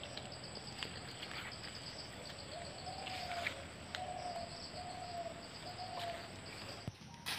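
Quiet dry-woodland ambience: insects trill steadily with a thin high whine. A bird gives a short low call about five times, roughly once a second, in the middle.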